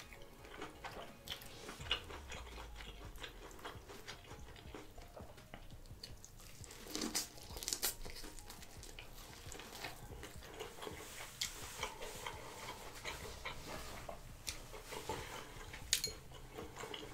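A person chewing and biting into corn on the cob: many small soft crunches and wet mouth clicks, a little louder about seven seconds in.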